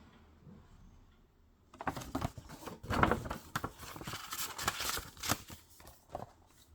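Packaging being handled by hand: a run of rustling, crinkling and small clicks and knocks that starts about two seconds in, lasts roughly four seconds and dies away near the end.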